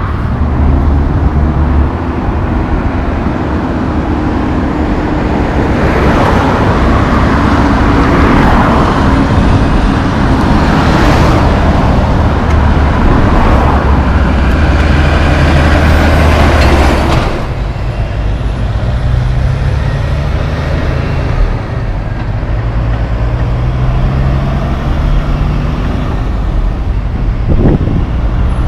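Diesel big rigs and road traffic passing at close range, with a steady engine drone. A louder rush of passing trucks fills the middle of the stretch, then eases back to a lower engine rumble about two-thirds of the way through.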